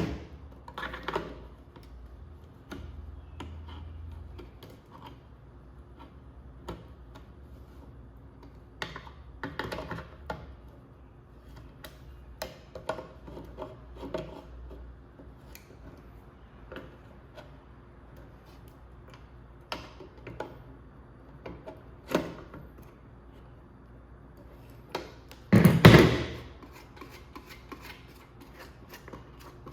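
Scattered clicks and knocks of a wrench on the small nuts that hold the knobs of a subwoofer control unit as they are loosened, with a louder clatter near the end.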